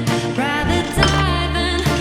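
Background music: a song with a sung vocal line over bass and a steady beat.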